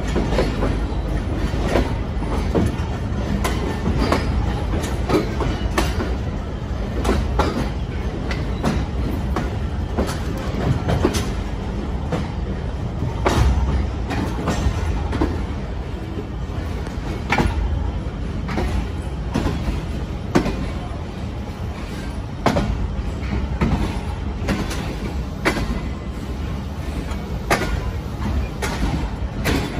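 Passenger express train rolling along the track. A steady low rumble runs under frequent, irregular clacks and knocks from the wheels passing over rail joints.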